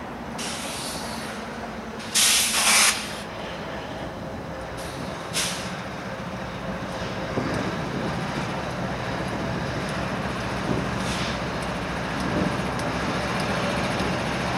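Diesel locomotives of a BNSF stack train rumbling slowly past, with several sharp bursts of hissing air, the loudest about two seconds in.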